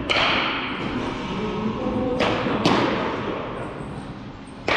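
Sharp knocks of baseballs being struck during practice. There is one at the start, two close together near the middle and one at the end, each with a short echo as in a large hall.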